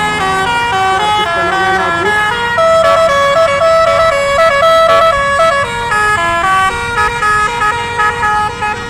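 Bus telolet horn: a set of musical air horns blowing a quick melody of stepped notes, with a repeated higher note held in short blasts in the middle.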